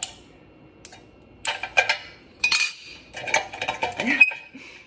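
Ceramic clinks and scrapes as the top of a Scentsy pumpkin warmer is lifted off and a hand works the light bulb inside it. There are a few single clicks at first, then busier bursts of clinking, some of them briefly ringing, in the second half.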